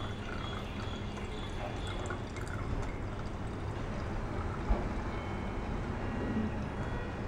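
Liquid pouring through a plastic funnel into a plastic bottle, with one short knock a little past halfway.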